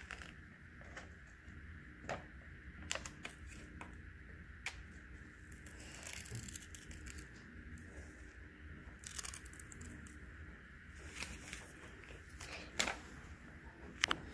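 Small pink-handled child's scissors snipping printer paper, with paper rustling as the sheet is turned. The snips are quiet and irregular, a few seconds apart, a little louder near the end.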